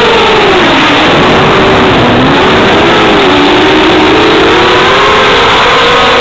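250-size FPV racing quadcopter's brushless motors and propellers whining loudly over a hiss of rushing air, heard from the camera on board. The pitch drops sharply in the first two seconds as the quad dives from height toward the ground, then climbs steadily as the throttle comes back in.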